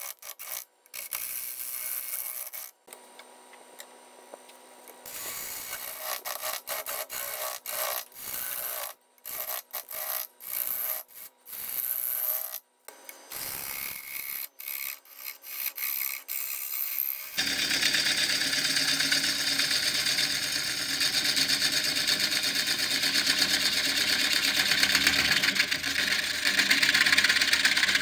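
Woodworking sounds in short, abruptly cut snippets: wood being rubbed and sawn, with hiss. About two-thirds of the way in, a louder power tool starts running steadily.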